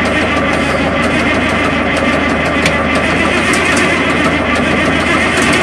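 Cold diesel engine running steadily just after start-up, heard close to its open vertical exhaust stack.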